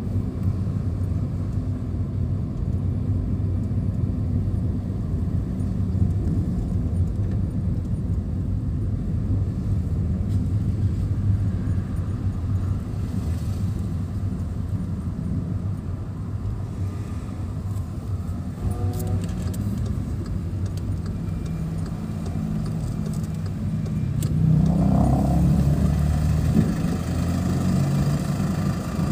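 Car engine and tyre noise heard from inside a car driving at low speed: a steady low drone that grows louder for a few seconds near the end, with a rising tone as it picks up.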